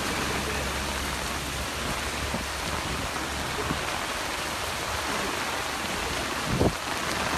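Steady rushing hiss of water from rain and fast-flowing floodwater, with a short low thump near the end.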